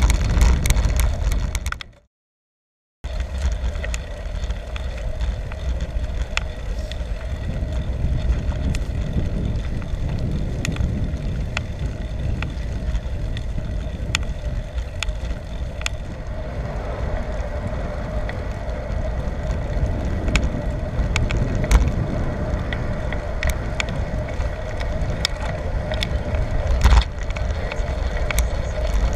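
Riding noise from a bicycle on the move: a steady low rumble with frequent small clicks and rattles. The sound drops out completely for about a second near the start, and a steady hum comes in about halfway.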